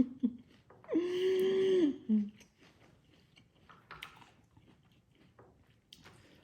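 A woman's wordless held vocal sound, about a second long on one steady pitch, with a short lower grunt right after. Faint chewing clicks follow as she eats.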